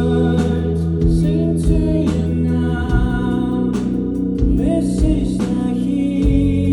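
Rock band playing live with a vocalist singing over sustained chords, bass and a steady drum beat.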